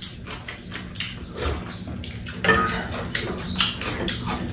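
Chopsticks and a spoon clinking and scraping against bowls and a metal serving tray, over the mouth sounds of eating udon noodles, with sharp clicks throughout and louder eating noises in the second half.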